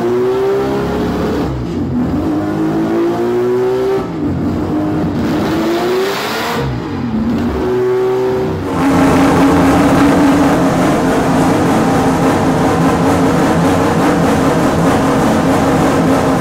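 Six-rotor, four-litre naturally aspirated Mazda rotary drag-racing engine revving up and down several times. About nine seconds in, the sound cuts to a steady, high engine note that is held to the end.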